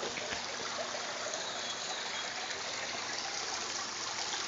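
Backyard swimming pool's waterfall running: a steady splash and trickle of falling water.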